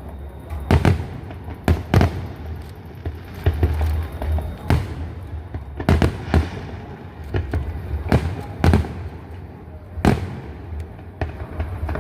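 Fireworks bursting overhead: about a dozen sharp bangs at irregular intervals, roughly one a second, over a steady low rumble.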